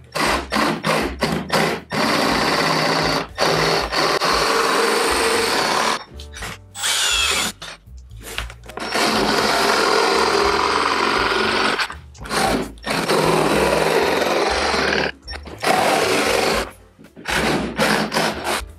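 Cordless jigsaw cutting through the plastic front body panel of a Club Car DS golf cart. It starts with a string of quick on-off blips while the blade starts in a pilot hole, then runs in several long cuts of a few seconds with short stops between them.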